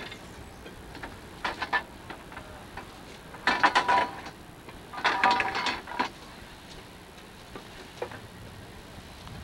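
Rapid metallic clicking and rattling in three bursts, the middle two the loudest, as a railroad section motorcar is turned around on the track by hand. A single click follows near the end.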